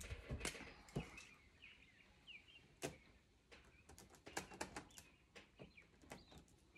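Near silence broken by faint, scattered clicks and taps of hands handling craft materials, with a few faint bird chirps behind them.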